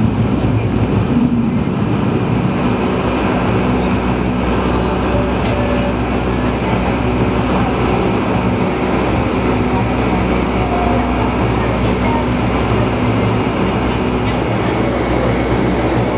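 Cabin noise inside a Boeing 757 climbing after takeoff: the steady sound of its twin jet engines and the rushing air, with a low steady hum underneath.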